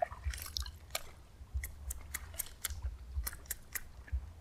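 Light, irregular clicks, several a second, with soft low bumps underneath, from a baitcasting reel and rod as a walk-the-dog topwater lure is twitched and reeled back.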